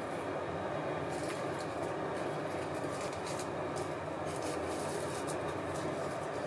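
Plastic cling wrap crinkling in irregular bursts as it is handled. Under it runs a steady machine hum, like a kitchen fan.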